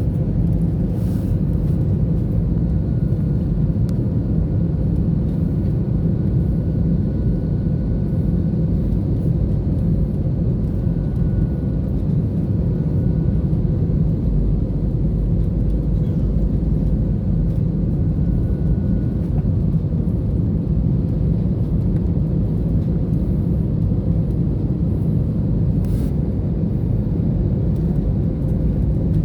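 Steady rumble of an airliner's cabin in flight: jet engine and airflow noise, deep and even, with a faint high whine that comes and goes.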